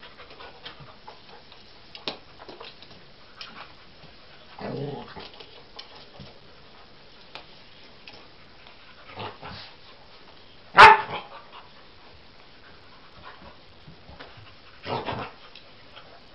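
A dog barking a few times in short single barks several seconds apart, the loudest and sharpest one about eleven seconds in.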